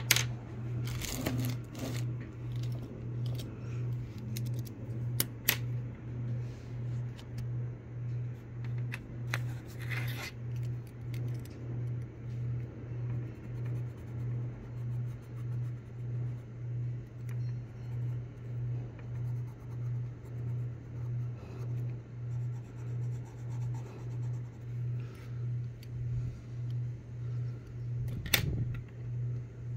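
A low hum throbbing steadily a little more than once a second, with a few sharp clicks and taps scattered through it, the loudest near the start and near the end.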